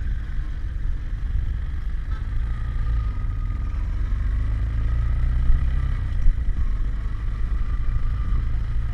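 Bajaj Pulsar NS200 motorcycle riding at a steady pace, heard from the rider's helmet camera: steady wind rumble on the microphone over the single-cylinder engine's running note.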